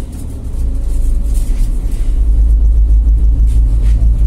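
Mercedes OM936 inline-six diesel of a Mercedes Citaro C2 G articulated bus, heard inside the passenger cabin as a deep steady rumble that grows louder about half a second in and then holds.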